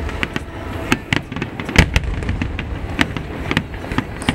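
Fireworks finale: aerial shells bursting in quick, irregular succession, several sharp bangs each second over a continuous low rumble, with the loudest bang about two seconds in.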